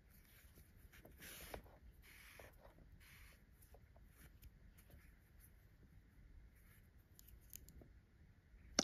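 Faint rustling of yarn drawn through a stuffed crocheted piece with a sewing needle: a few soft swishes in the first few seconds, then only small faint ticks of handling.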